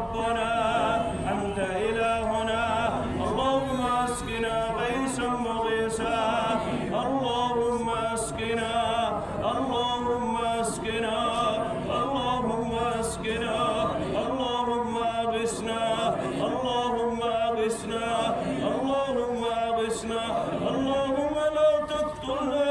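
A man's voice chanting an Arabic supplication of the rain prayer in a slow, melodic recitation. Long held notes rise and fall and break every second or so.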